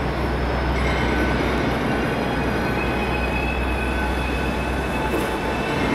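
Electric Cercanías commuter train running nearby: a steady low rumble with thin, high, steady whining tones over it.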